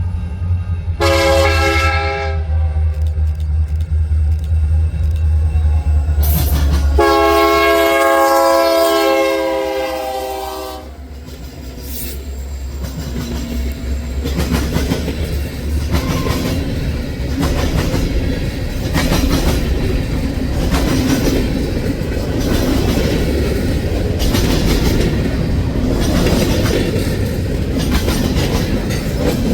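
Train passing close by: a diesel locomotive's engine running with a heavy low hum, its horn sounding one short blast about a second in and a longer blast about seven seconds in. After that come the railcars rolling past, with a steady rumble and the wheels clicking over the rail joints.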